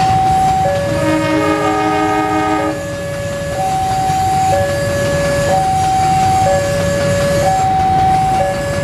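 Level-crossing warning alarm sounding two alternating tones, each held a little under a second, with a GE CC206 diesel locomotive rumbling past. The locomotive's multi-tone horn sounds once, about a second in, for under two seconds.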